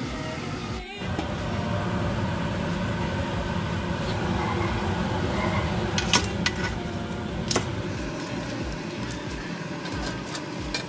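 Water at a rolling boil in a stainless stockpot, a steady bubbling hiss. Past the middle come two sharp metal clinks of tongs against the pot as crabs are lifted into it.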